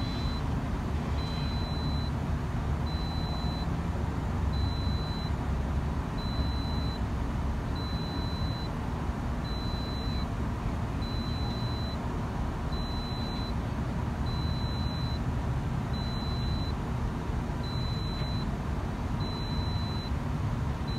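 Excavator diesel engine running steadily as it digs and swings, with a high single-tone warning beep repeating about every second and a half.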